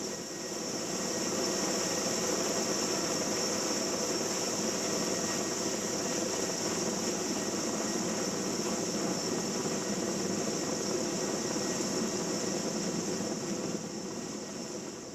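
Erickson S-64 Aircrane heavy-lift helicopter running steadily, its twin turbine engines and rotor making a continuous rush with a strong high hiss. It grows a little louder about a second in and eases off slightly near the end.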